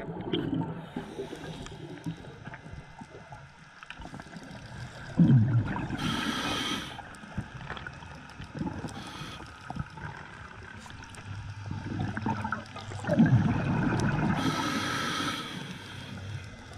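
A scuba diver breathing through a regulator underwater: two breaths about eight seconds apart, each a loud low bubbling rush followed by a hiss from the regulator. A low underwater rumble runs between them.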